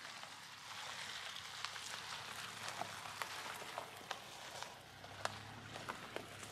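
Faint crackling of tyres rolling slowly over twigs, leaf litter and gravel on a dirt track as a Land Rover Defender 130 creeps past, with scattered small clicks and pops. A low hum from its 3-litre petrol engine grows as the vehicle draws level near the end.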